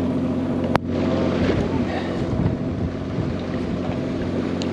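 Fishing boat's motor running steadily with a low hum, with wind on the microphone. A single sharp click just under a second in.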